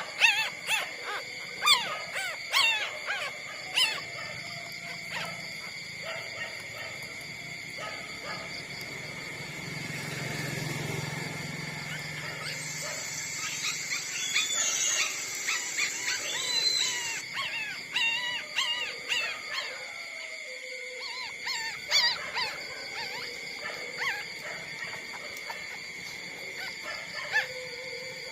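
Puppies whimpering and squeaking in short high-pitched calls. The calls come thick and fast at the start, then scattered.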